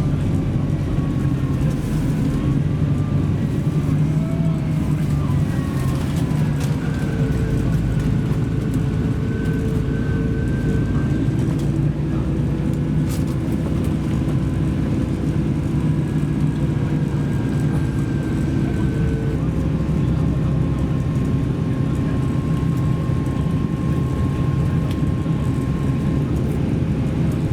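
Road vehicle running at a steady speed, heard as a steady low drone with a faint whine that slides up and down in pitch.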